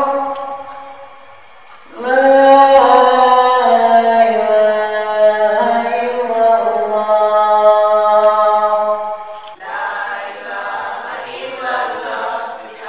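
A man's unaccompanied voice calling the adhan, the Islamic call to prayer, in long drawn-out phrases that step and bend in pitch: one phrase fades out just after the start, and a new one begins about two seconds in and is held for about seven seconds. About ten seconds in the sound changes abruptly to a different, more echoing chanted voice.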